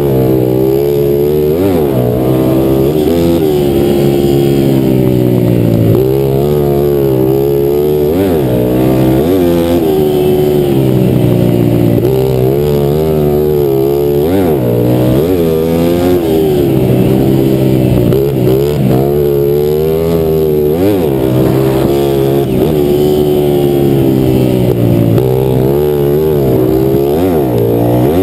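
Racing motorcycle engine heard from the rider's helmet camera, held at high revs around a dirt oval. The pitch drops sharply and climbs back again and again as the throttle is rolled off and opened.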